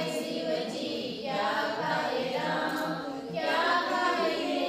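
A group of women singing a Hindu devotional bhajan together in phrases that rise and fall.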